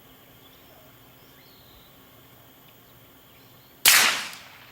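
A single suppressed shot from a 10mm Glock pistol, fitted with a SilencerCo Octane 45 HD suppressor, near the end: a sharp crack that fades over about half a second. Before it, a faint steady outdoor background with a few faint bird chirps.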